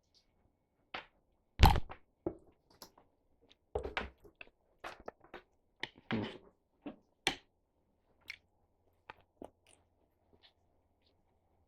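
A person eating pork and string-bean adobo up close: wet chewing with irregular clicks and knocks. The loudest is a thump about one and a half seconds in.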